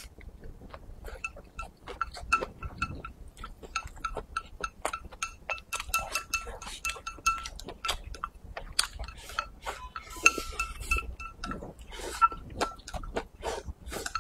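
Wooden chopsticks clicking and scraping against a porcelain rice bowl as rice is shovelled into the mouth, with wet chewing and lip-smacking. Many sharp irregular clicks, and a faint high ringing tone comes and goes.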